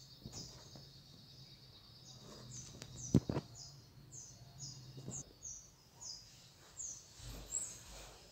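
A small bird chirping faintly outside: short, high, downward-sliding chirps, about two a second, over low room hum. A single sharp knock sounds a little after three seconds in.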